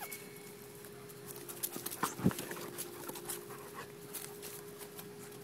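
Ten-week-old Doberman Pinscher puppies at play: a run of light clicks and scuffles, loudest about two seconds in.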